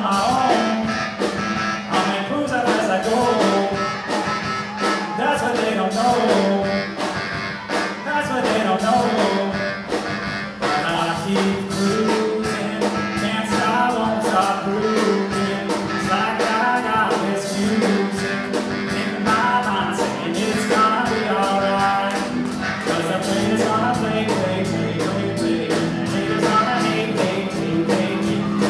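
Live rock band of keyboard, guitar and drums playing a song, a melodic lead line running over a steady accompaniment.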